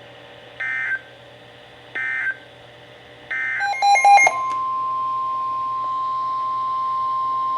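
NOAA Weather Radio alert signals. Three short buzzy bursts of SAME digital data tones, about a second and a half apart, mark the end of the previous message. Then come a brief cluster of beeps and clicks, and from about four seconds in a steady 1050 Hz warning alarm tone that announces the next alert.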